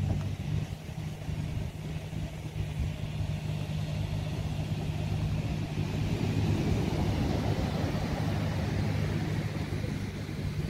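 Excavator's diesel engine running steadily with a low hum, over the wash of breaking surf and wind on the microphone.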